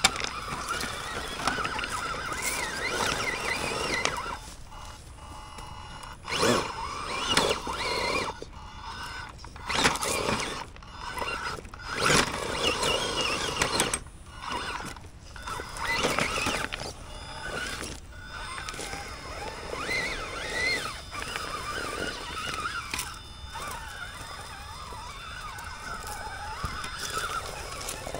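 Element RC Gatekeeper crawler's electric motor and geared drivetrain whining under load, rising and falling in repeated bursts of throttle.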